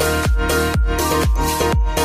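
Background music with a steady electronic dance beat: a deep kick drum about twice a second under held chords.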